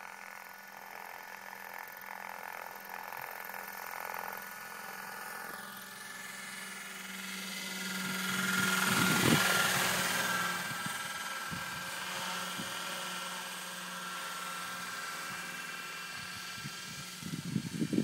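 Radio-controlled Bell 206L scale model helicopter in flight: a steady motor and rotor whine that grows loud as it passes close about nine seconds in, then eases as it flies away. A few low thumps near the end.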